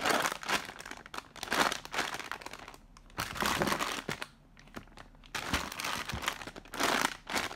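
Clear plastic packaging of a bagged squishy toy crinkling in several irregular bursts as it is handled, squeezed and turned over.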